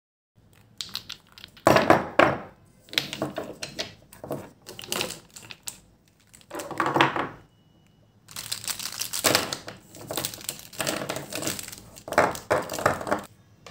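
Small plastic paint jars and a handful of felt-tip marker pens handled and knocked together: a run of clicks, taps and clattering rattles, with a short lull just past the middle.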